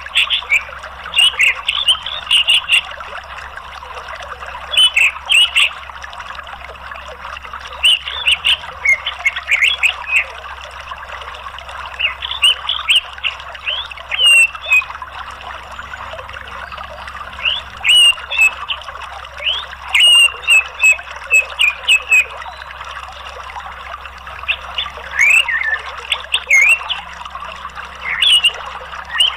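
Orange-headed thrush singing in short bursts of quick, high, chattering chirps, with a steady rush of flowing water underneath.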